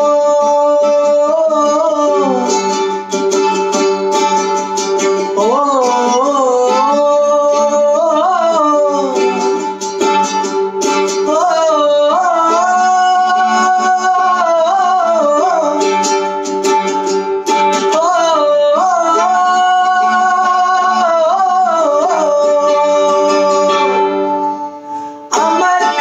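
A man singing long held notes with vibrato and slow bends, accompanied by a strummed mandolin. Near the end the voice breaks off briefly and the mandolin comes back alone with strong plucked notes.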